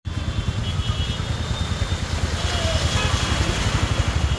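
Floodwater rushing across a road surface, with a vehicle's engine rumbling low underneath as it drives through the water.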